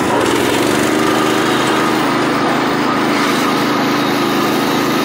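Predator 212cc single-cylinder four-stroke engine on an old Moto-Mower garden tractor, running steadily under the rider.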